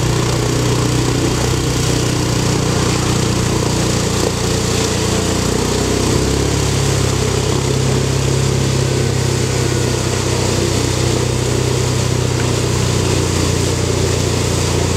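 ATV engine running steadily under load as the pontoon-floated quad drives across open water, its spinning wheels churning up spray, with a constant hiss over the engine note.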